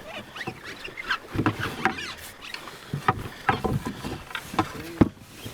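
Canoe being boarded and settled into: irregular knocks, scrapes and short squeaks of the hull and gear being moved around.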